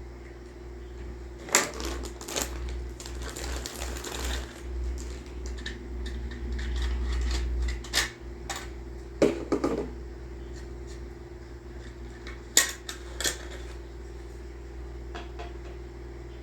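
Plastic model-kit parts and packaging being handled: scattered sharp clicks and taps, with a stretch of rustling a couple of seconds in, over a steady low hum.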